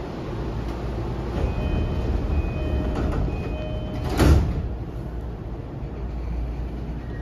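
E233 series 5000 commuter train's door chime repeating for about two seconds, then the sliding doors slamming shut with a loud thump a little over four seconds in, over the steady hum of the stopped train.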